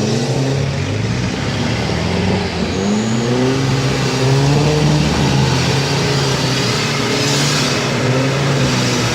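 Off-road 4x4 engine revving hard, its pitch rising and falling several times as it is driven and throttled on and off, with a brief rush of hiss about seven seconds in.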